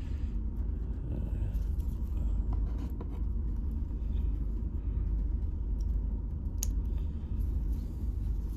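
Steady low rumble of a ship underway, with a few faint clicks as plastic model parts are handled and fitted together.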